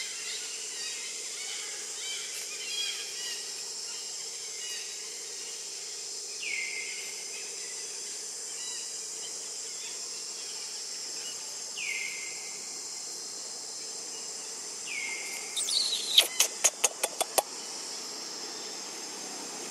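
Steady high insect drone with three short bird calls that sweep downward, several seconds apart. About sixteen seconds in, a quick run of about seven loud, sharp clicks, the loudest sound here.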